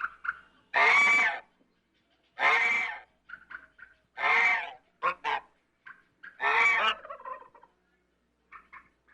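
Domestic African goose honking: four long, loud honks spaced about two seconds apart, with short softer notes in between.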